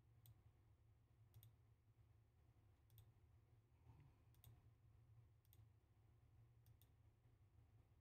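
Faint computer mouse clicks, about six spread over several seconds, some in quick pairs, over a low steady hum.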